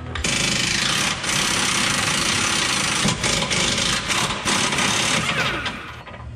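Air impact wrench running in several bursts with short breaks between them, spinning nuts off a truck's transmission crossmember.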